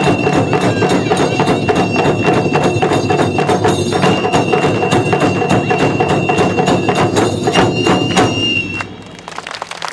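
Loud Japanese festival music with a fast, driving beat of drums and wood-block-like strikes under a long high held note. It ends abruptly near the end.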